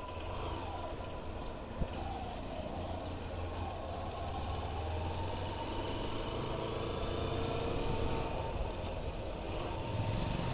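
Hero Hunk motorcycle's single-cylinder four-stroke engine running at low road speed, heard from the rider's seat over road and wind noise. The sound grows slightly louder as the bike gathers speed.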